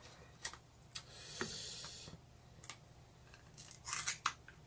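Light handling noises: a few soft clicks and taps, with a crinkly rustle lasting about a second from about a second in and more rustling near the end.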